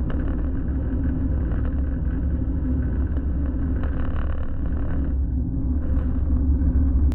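Kei truck running, a steady low rumble of engine and road noise.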